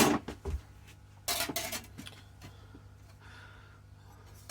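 Handling noise of hand tools being picked up and set down: a clatter at the start, a small knock, and another clattering rattle about a second and a half in, then quieter shuffling.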